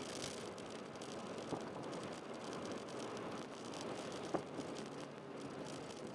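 A 2005 Honda Jazz 1.3 running at a steady engine speed, with no revving up or down. Two short, sharp knocks sound about a second and a half in and again just after four seconds.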